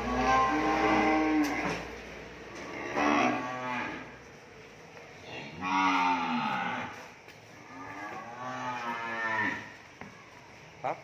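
Cattle mooing: four long calls a couple of seconds apart, the pitch bending within each. A brief sharp click near the end.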